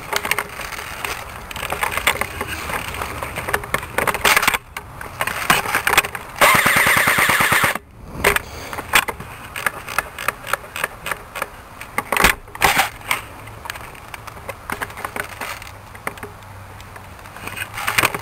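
ICS M4 airsoft electric gun firing, heard close up, with a long rapid full-auto burst about six seconds in. Scattered sharp clicks and rustling of handling and movement come before and after it.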